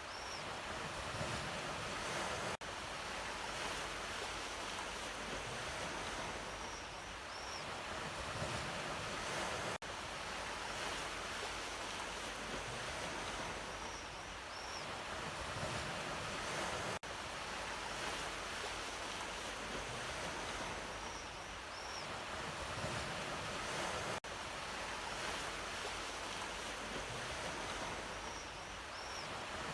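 Ocean waves washing on a shore in a steady rush with slow swells, a short recording looped so the same stretch repeats about every seven seconds, with a brief dip at each join.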